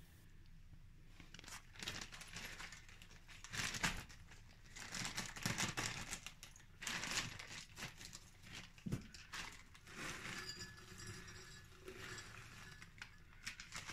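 Plastic freezer bag of frozen pomegranate seeds crinkling and rustling in faint, irregular bursts as it is handled and opened. Near the end the frozen seeds are tipped from the bag into a glass jug.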